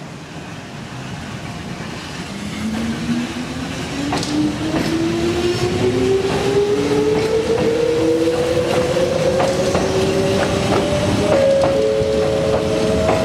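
Electric commuter train pulling away from a station and accelerating: its motor whine climbs steadily in pitch, with wheels clicking over the rails, and the sound grows louder through the first half before holding level.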